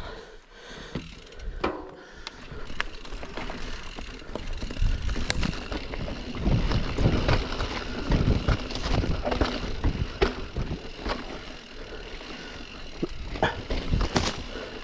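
Mountain bike rolling down a steep dirt trail section. The tyres rumble over the ground and the bike rattles and knocks, loudest in the middle, with two sharper knocks near the end.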